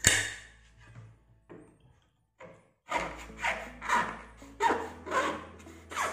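A clink at the start, then a kitchen knife sawing back and forth through a purple passion fruit's rind against a ceramic plate, in repeated strokes about two a second starting about three seconds in.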